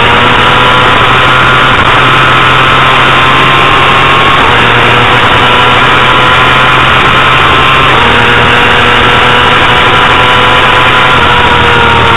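Honda CBR250RR's 250 cc inline-four engine at high revs, heard onboard, loud with wind noise. The revs climb steadily with a few abrupt steps in pitch.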